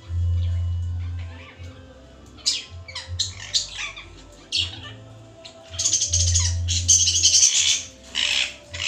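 Pet parakeets calling: a few short chirps about two and a half seconds in, then a long, loud squawking from about six seconds and one more short squawk near the end. Background music with a low bass runs underneath.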